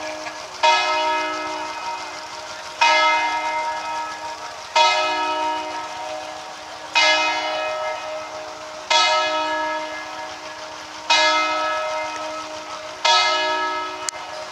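A single church bell tolling slowly: seven strikes about two seconds apart, each ringing on and fading before the next.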